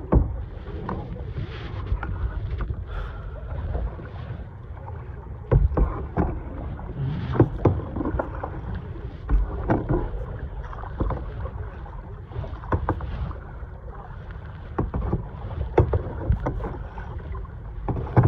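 Kayak being paddled on the ocean: irregular splashes and knocks from the paddle and hull over water noise, with wind rumbling on the microphone.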